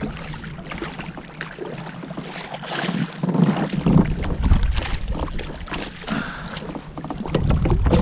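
Hooked smallmouth bass splashing and thrashing at the water's surface beside a kayak as it is reeled in, in irregular watery splashes, with a low rumble coming in about halfway through.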